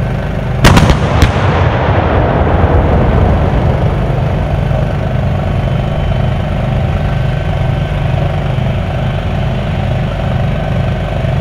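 Self-propelled howitzers firing: two sharp blasts about half a second apart, each a big cannon shot, followed by a long rolling rumble that slowly fades. The vehicles' diesel engines idle steadily underneath.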